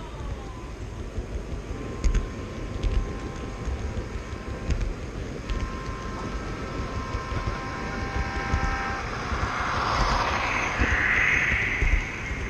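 Steady rumble of a model train's wheels rolling along the track, heard from a camera riding on the train, with occasional sharp clicks. Near the end a rushing sound builds and peaks as a model freight train passes close by on the neighbouring track.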